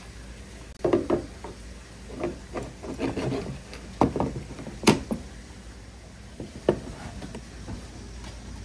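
Metal axle rod being fed through the hollow plastic body of a ride-on toy car: irregular scraping and knocking of metal on plastic, the sharpest knock about five seconds in.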